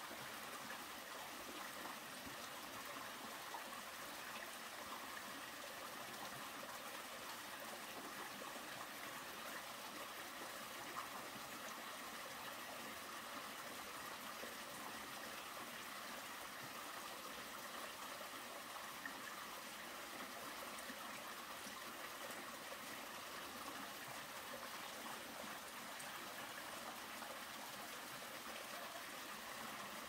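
Water running down a narrow, partly frozen waterfall in a rock cleft into a mountain stream, a steady, even rush.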